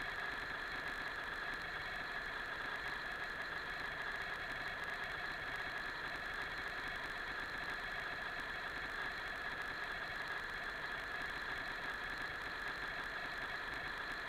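Steady mechanical hum with constant high whining tones, unchanging throughout.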